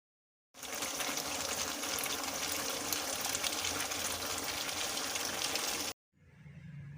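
Steady rushing of running water that starts abruptly and cuts off suddenly near the end, followed by a fainter low hum.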